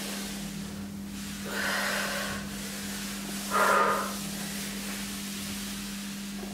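A hand-held towel sliding across a wooden floor, two rubbing swishes about a second and a half and three and a half seconds in, over a steady low hum.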